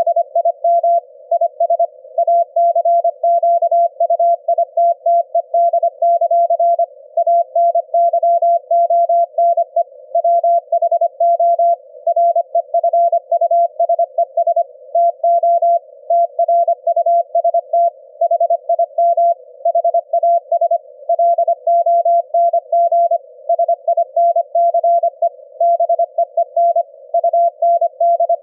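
Morse code at about 25 words per minute, heard as a single mid-pitched beep keyed rapidly on and off in dots and dashes: the demodulated audio of a 25 Hz ELF-band CW signal in an SDR receiver, with faint receiver hiss between the elements.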